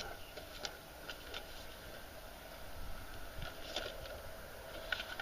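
Faint, scattered light clicks and rustles from small objects being handled at a workbench.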